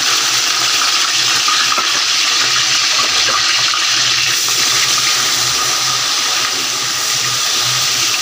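Sliced onions sizzling in hot cooking oil in a large metal pot, a loud, steady, dense hiss as they are stirred with a spatula.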